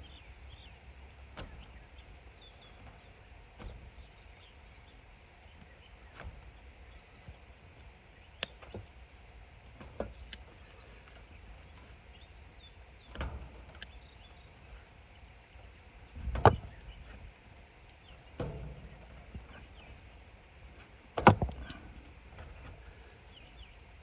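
Handling noise from work on thermostat wire and tools: scattered light clicks and knocks over a low steady rumble, with two louder knocks in the second half.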